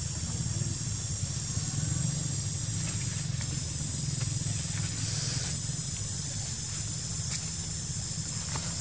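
Steady outdoor ambience: a high, even insect drone over a low steady hum, with a few faint clicks and rustles from two macaques scuffling in dry leaf litter.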